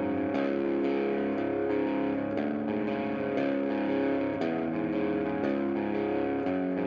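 Background music led by a distorted electric guitar, with chords changing over a steady beat.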